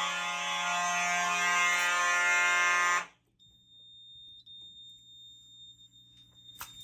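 Simplex 4903 fire alarm horns sounding a loud, steady continuous tone that cuts off abruptly about three seconds in as the system is silenced. Afterwards only a faint, steady high-pitched tone remains, with a small click near the end.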